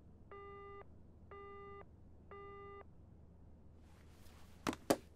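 Telephone busy tone as heard in Japan: three even beeps, each about half a second long and a second apart, the signal that the line has gone dead after the other end hung up. Near the end a brief rustle and then two sharp clicks, the loudest sounds here.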